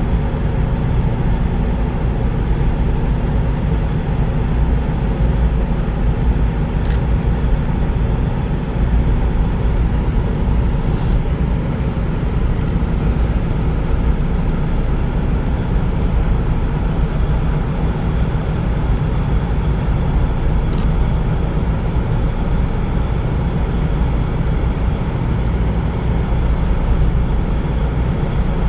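Steady low rumble with a faint droning hum that fades out about twelve seconds in, and a few faint ticks.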